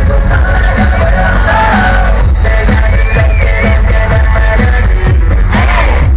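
Live pop concert music played loud over the PA, with a heavy bass beat and singing, recorded from within the audience.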